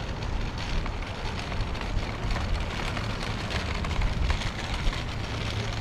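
City street ambience heard on foot: a steady wash of background noise over a low, wavering rumble.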